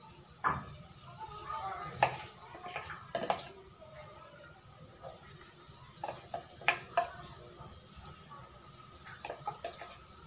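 Urad dal batter fritters (bhalle) deep-frying in hot oil with a steady sizzle. A few sharp clicks come as more spoonfuls of batter are dropped into the pot.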